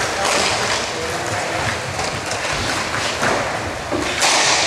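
Noise of a team game in play, with several sharp knocks and thuds about a second and a half apart.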